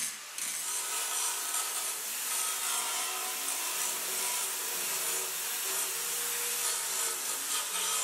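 Handheld electric belt file sanding the bare steel of a car's door sill: a steady motor whine under a continuous abrasive rasp. It follows a split second of angle-grinder-type grinding at the very start.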